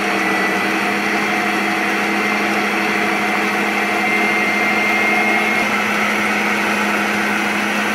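Electric stand mixer running at medium speed, its twin beaters whirring through cake batter: a steady motor hum with a thin high whine.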